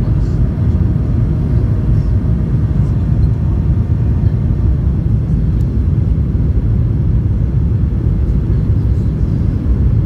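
Steady low rumble of a Boeing 737-900's CFM56-7B engines and rushing airflow, heard inside the passenger cabin over the wing as the jet descends on approach with flaps extended.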